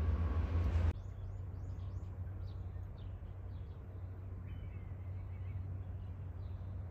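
Outdoor ambience with a heavy low rumble for the first second, likely wind on the microphone, cutting off suddenly; then birds chirping, a quick run of short high calls followed by scattered ones, over a faint steady low rumble.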